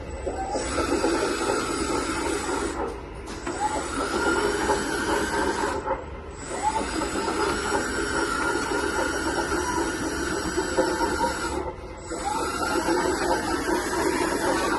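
Metal 1:14 hydraulic RC bulldozer model running its electric drive motors and hydraulic pump with a whirring, grinding mechanical whine, in spells of a few seconds that stop briefly three times.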